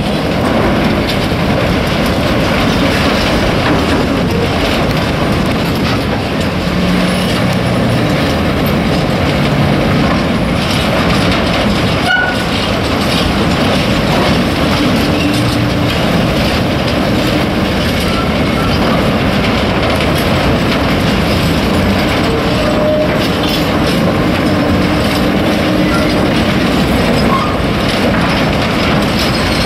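Sand pouring out through the bottom doors of railway hopper wagons down steel chutes, a loud steady rush, mixed with the rumble and clatter of the wagons on the bridge.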